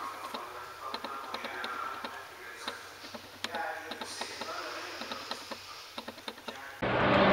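Room tone with faint, indistinct voices and scattered light clicks. Near the end a loud propeller aircraft engine sound cuts in abruptly.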